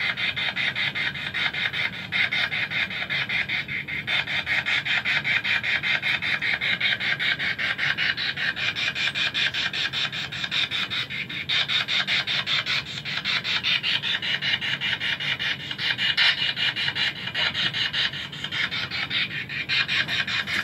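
Ghost-hunting spirit box (a radio scanner) sweeping through stations, putting out an unbroken, even chatter of short static chops, several a second, which the operator listens to for answers.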